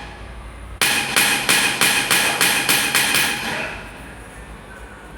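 A fast, even run of sharp metal strikes with a ringing tone, about four a second, from stamping a scale pattern into gold bracelet stock. The strikes start just under a second in and stop about three and a half seconds in, leaving a low hum.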